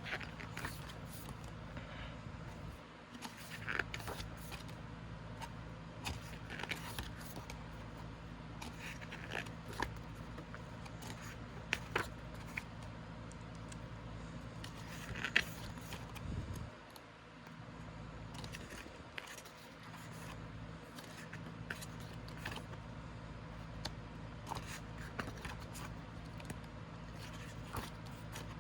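Pages of a K-pop album photobook being turned and handled: scattered rustles and small clicks of paper over a steady low hum.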